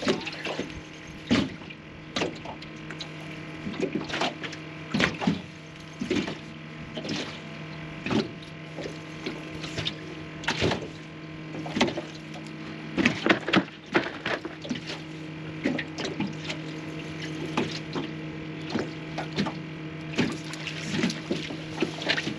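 Choppy lake water slapping irregularly against an aluminum jon boat's hull, with a steady low hum underneath.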